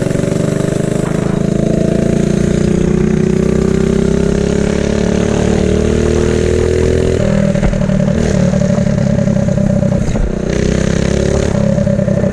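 Mini bike's small single-cylinder engine running under way, its pitch climbing slowly for about seven seconds, then dropping abruptly and holding lower, with a brief dip near ten seconds.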